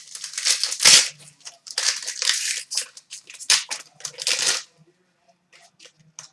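Foil trading card pack wrapper crinkling and being torn open in a run of crackly bursts that stops about four and a half seconds in, followed by a few faint ticks of cards being handled.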